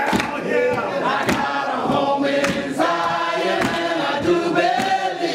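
Church congregation singing a gospel song together in a hall, with hand claps keeping the beat.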